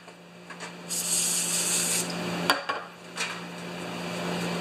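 An aerosol spray can hisses in one burst of about a second, cleaning a carburetor part. A couple of sharp knocks follow as the can and parts are handled on a metal tray.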